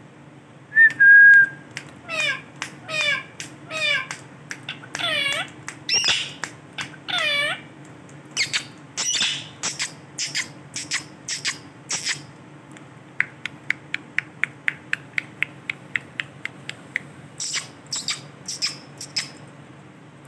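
Male ringneck parrot calling: loud whistled calls that sweep up and down in pitch, about one a second, then a quick run of short sharp chirps, about four a second, and a few more calls near the end.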